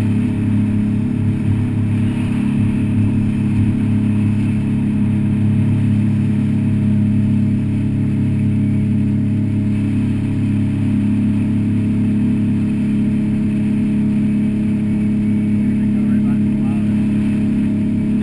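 Wooldridge jet boat's engine running at a steady cruising speed, a constant low drone that does not change pitch.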